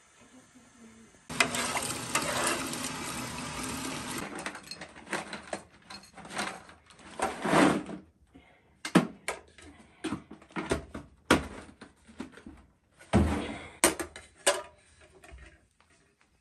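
Water running for about three seconds, starting suddenly about a second in, followed by a series of clinks and knocks as metal and glass kitchenware is handled.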